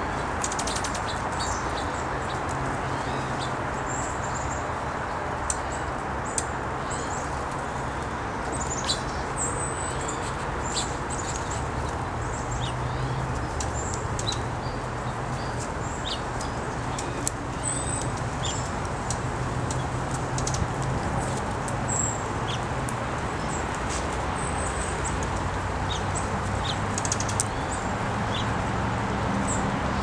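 Small wild birds chirping, with short high call notes scattered throughout over a steady rushing outdoor background with a low hum. A few sharp clicks stand out here and there.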